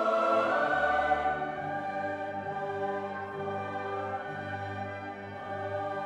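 Background music: sustained orchestral chords with choir-like voices, the chords changing slowly.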